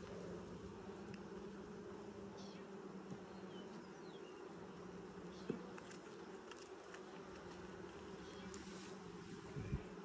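Honey bee colony humming steadily in an open Langstroth hive. A sharp click about halfway through and a low knock near the end come from a hive tool working between the wooden frames.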